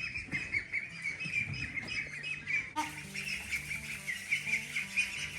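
A group of young poultry peeping continuously: many short, high chirps overlapping.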